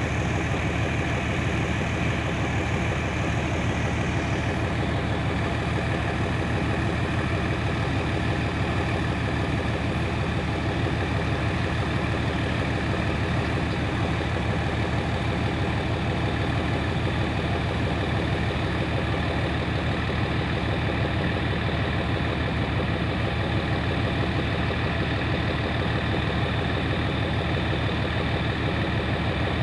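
GE diesel-electric locomotive of the Thai railways' GEK class idling steadily while standing still, a constant low engine rumble with no change in speed.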